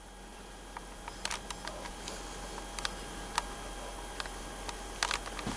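Handling noise of a handheld video camera: scattered small clicks and taps over the camera's faint steady hum, with a short cluster of clicks near the end.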